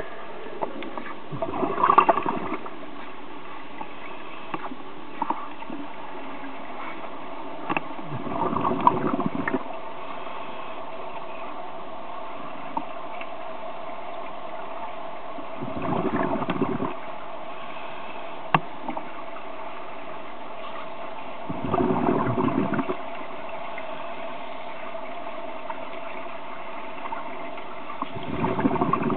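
Scuba divers' regulator exhalation bubbles heard underwater: a gush of bubbles about every six seconds, five times, over a steady hum.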